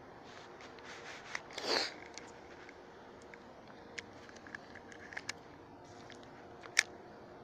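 Scattered small clicks and scrapes of close handling, with a short rustle about two seconds in and one sharp click near the end, over a faint steady outdoor background.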